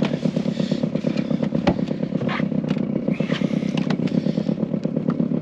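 Small boat motor idling steadily, with a single sharp knock about a second and a half in.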